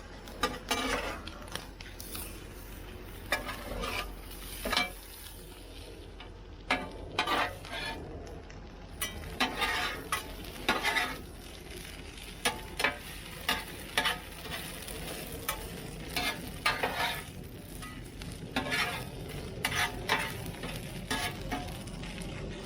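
Spatula scraping and clattering over and over on a Blackstone flat-top griddle, mixing diced ham into shredded hash browns, with the food sizzling underneath.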